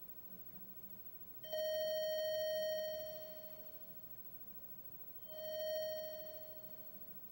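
Commodore SX-64's SID sound chip playing two mid-pitched pulse-wave test tones on voice 2 during an ADSR envelope test. The first comes on sharply about a second and a half in, holds for about a second and then fades out (sustain and release). The second swells up about five seconds in and fades away (attack and decay).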